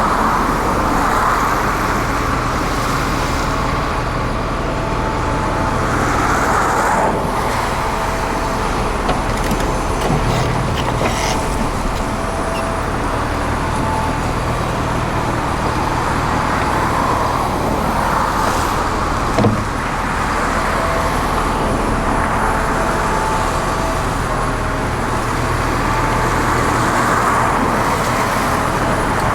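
Heavy excavator diesel engine working under load, swelling and easing every several seconds as it digs. A few knocks, with a sharper thump about two-thirds of the way through.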